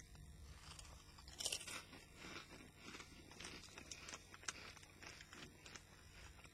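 Faint crunching and chewing of Walkers potato crisps in the mouth: a run of short, sharp crackles, the loudest crunch about a second and a half in.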